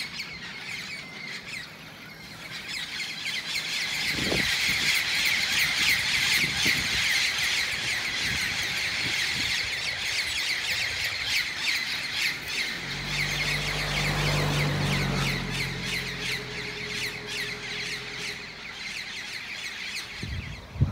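A flock of parrots squawking in the treetops, many harsh calls overlapping into a loud, continuous racket that swells a couple of seconds in. A low hum runs underneath for several seconds in the latter part.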